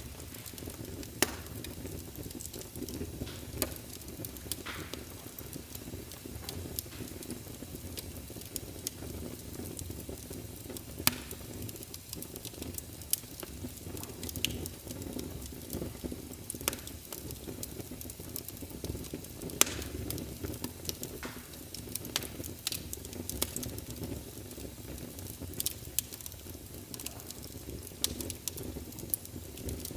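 Wood fire in a fireplace crackling, with irregular sharp pops over a steady low rumble; three pops stand out louder, about a second in, near the middle and about two-thirds through.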